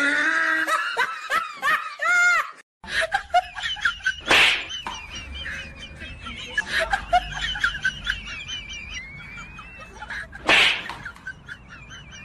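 Someone laughing, then after a short break a steady run of high, wavering chirps, cut through twice by a short, loud, hissing burst.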